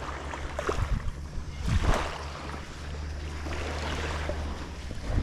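Wind buffeting the microphone in a steady low rumble, with a few dull thumps, the loudest about two seconds in and another near the end.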